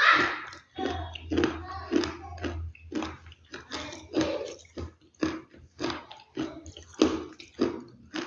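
Close-up crunching of a brittle, earthy material such as dry clay or chalk, a little over two crisp crunches a second in an uneven rhythm.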